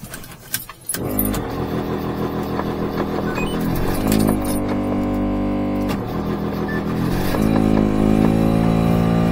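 Supercharged Daihatsu Hijet mini truck's 660cc engine: a cold start without the choke, catching about a second in after a jingle of keys, then running with a few blips of the throttle and settling to a higher, fast idle near the end. The owner suspects an air leak somewhere.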